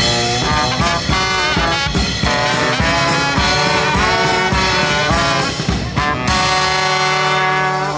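Street brass band with trombone and saxophone playing a loud, fast, jazzy tune; about six and a half seconds in the band settles onto a long held chord.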